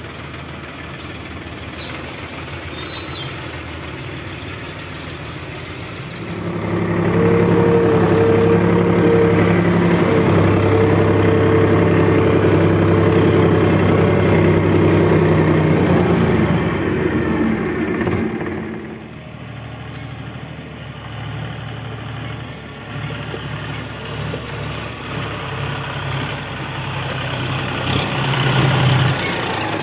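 Tractor diesel engine running. It picks up and runs much louder and harder from about six seconds in until about eighteen seconds, then settles back to a lower, steady run and rises again near the end.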